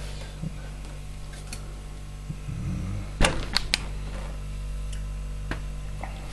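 A low steady hum with a few sharp clicks and light knocks a little past halfway: handling noise at the shelves of an open refrigerator.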